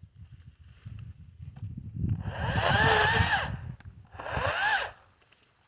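Kobalt 40V Max battery chainsaw, its electric motor and chain whining in two bursts about two seconds in and again near the end, each time spinning up and winding back down as the trigger is squeezed and let go.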